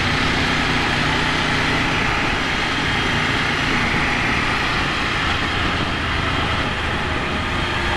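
Motorcycle riding at a steady speed: steady wind and road noise over a Ducati Monster 797's air-cooled L-twin engine running evenly.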